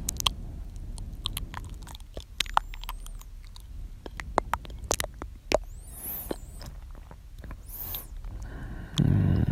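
Close-miked ASMR mouth sounds: many sharp, wet tongue and lip clicks scattered irregularly, with a few soft breathy hisses, then a louder, low breath near the end.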